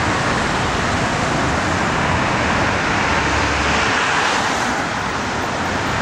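Steady city traffic noise: a dense, even rush of passing vehicles with no single event standing out.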